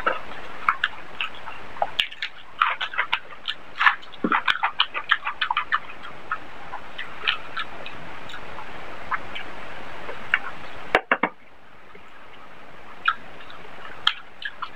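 Close-miked wet chewing and lip smacks of a mouthful of rice and curry, with a rapid run of smacks about two to six seconds in and scattered ones after, over a steady hiss that drops out briefly about eleven seconds in.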